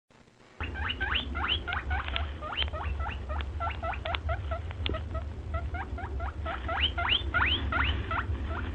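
Rapid high-pitched animal squeaks, several a second, each sweeping upward in pitch, over a steady low hum; they begin about half a second in.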